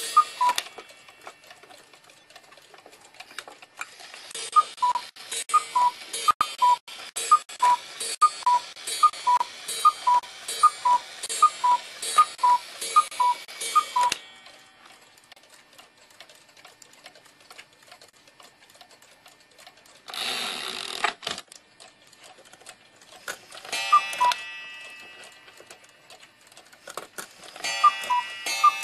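Cuckoo clock calling, a falling two-note "cu-ckoo" repeated a dozen or so times in quick succession with clicks from the mechanism. After a pause there is a brief rushing noise, then the calls start again near the end.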